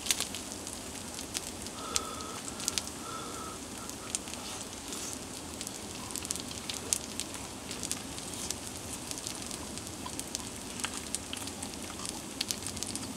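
Steak sizzling on a hot rock salt plate: a steady hiss with scattered crackles and pops.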